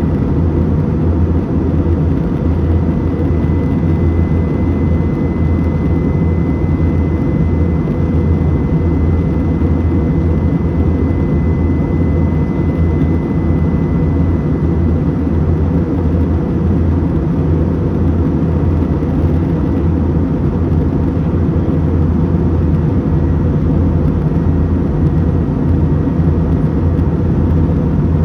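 Airliner cabin noise in cruise: a steady, loud low drone from the engines and airflow, with a faint high whine that fades out about halfway through.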